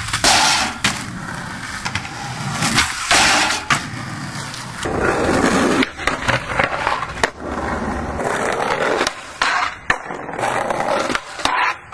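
Skateboarding on concrete: wheels rolling, broken by sharp clacks from tail pops and board landings.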